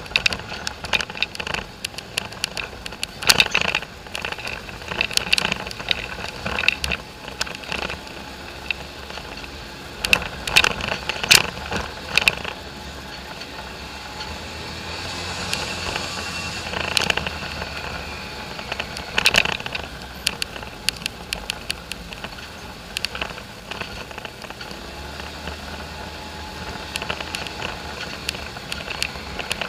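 Polaris four-wheeler driving over a rough dirt trail: a steady engine and ride noise under frequent rattles and knocks as it bounces over the ruts.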